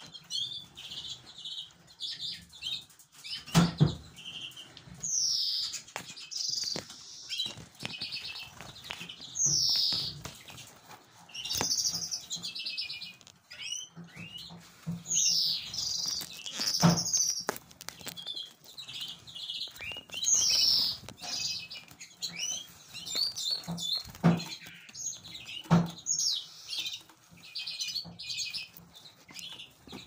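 Several male domestic canaries chirping and giving short bursts of trilling song, with wing flutters and a few sharp knocks.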